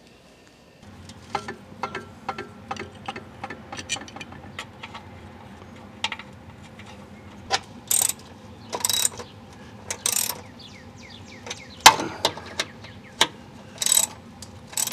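Hand tools working on a steel exhaust pipe and bracket. A run of sharp clicks and metal clinks, a few short rasping bursts around the middle, and one loud metallic clank about twelve seconds in, over a steady low hum.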